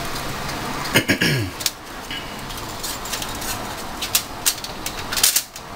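A fish being set on a wire rack lined with aluminium foil in a wok: a few sharp clicks and crinkles of the rack and foil in the second half, over a steady background hiss. A short low vocal sound, falling in pitch, about a second in.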